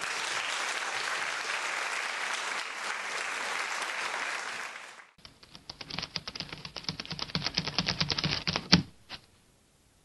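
Audience applauding steadily for about five seconds, cut off suddenly. Then a fast run of sharp clicks that grows louder and ends in one loud hit, a logo sound effect.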